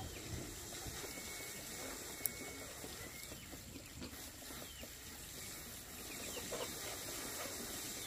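Chickens clucking over low outdoor background noise, with one sharp click a little over two seconds in.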